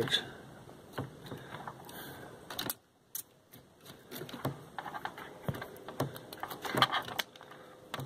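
Hands handling thermostat wires and plastic wire nuts while unwiring a low-voltage connection: scattered small clicks and rattles, with a short lull about three seconds in.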